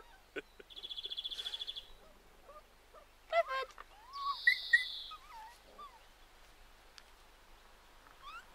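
Five-week-old Labrador puppies wrestling, giving a cluster of short yelps and squeals a few seconds in. A rapid high trill sounds briefly near the start.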